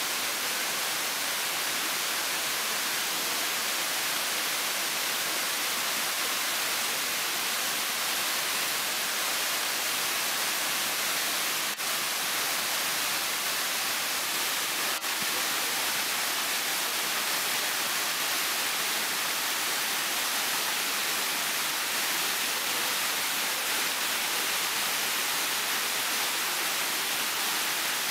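Small waterfall cascading over rocks: a steady, even rush of water that briefly drops out twice partway through.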